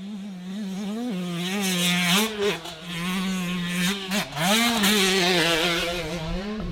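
Dirt bike engine revving and backing off repeatedly as it is ridden, the pitch rising and falling, getting louder over the first couple of seconds.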